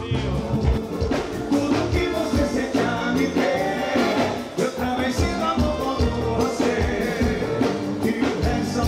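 Upbeat band music with a steady beat and a singing voice.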